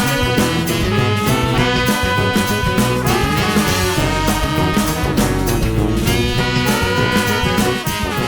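Background music: upbeat swing-style tune with brass and a steady beat.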